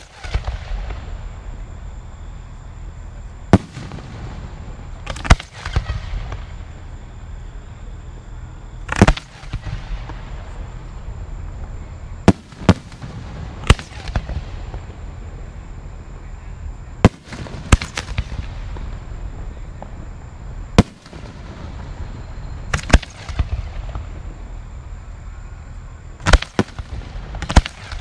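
Aerial fireworks booming at a display: about a dozen sharp bangs at uneven intervals, sometimes two close together, each trailing off in an echoing rumble.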